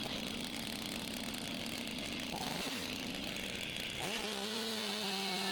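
Stihl MS 881 two-stroke chainsaw running steadily in a chainsaw mill, cutting through a log. About four seconds in, background music comes in over it.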